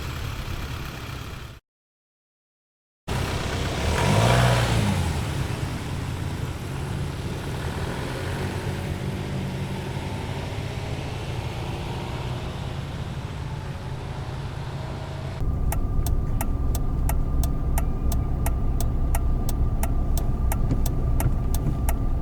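Car engine sound effects in succession. An engine runs and is cut off for a moment of dead silence. Then an engine rises and falls in pitch once and runs on steadily. About two thirds of the way in, a different engine sound starts, with a steady tone and even ticks about two or three a second.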